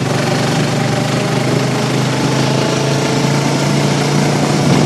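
ATV engine running steadily under throttle as the four-wheeler picks up speed, a steady engine drone with a haze of noise over it.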